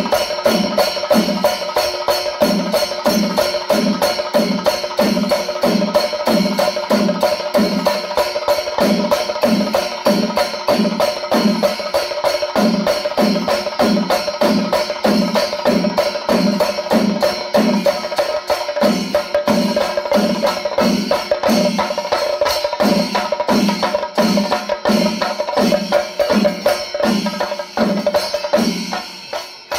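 Chenda melam: a large ensemble of chenda drums struck with sticks in fast, dense rolls over a steady beat of about two strokes a second, with ilathalam brass cymbals clashing and ringing throughout. The sound fades away just before the end.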